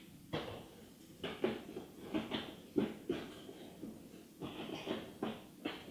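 Cardboard shoe box and sneaker being handled: a string of irregular light knocks, taps and rustles as a shoe is set into its box.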